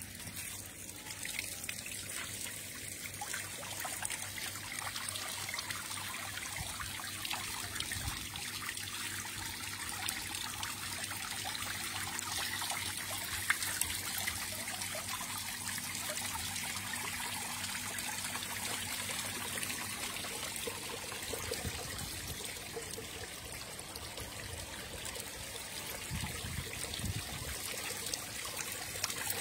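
Water trickling steadily, with some low rumbling in the last few seconds.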